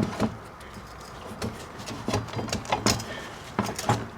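Irregular metal clicks and knocks, about a dozen, as the front axle of a motorcycle wheel is worked and tapped out of the hub.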